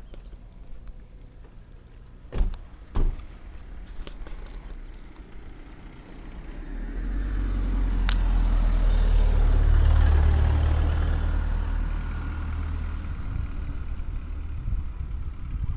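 A car's engine and tyre rumble building up over several seconds, loudest about ten seconds in, then easing off a little but staying on. Two sharp knocks a few seconds in.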